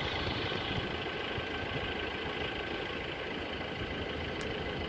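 Twin rear-mounted jet engines of a small business jet running at taxi power: a steady whine over a low rumble.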